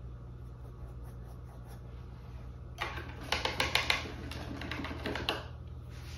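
Painting supplies being handled off the canvas: a quick, uneven run of small clicks and clatters, like a brush knocking against a jar or palette. It starts about three seconds in and lasts a couple of seconds.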